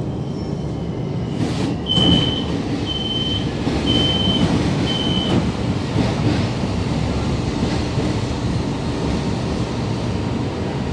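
Door-closing warning on a CSR Zhuzhou "AMY" LRT train: four even, high beeps about a second apart, with a short noise just before them. A steady low rumble of the train runs underneath.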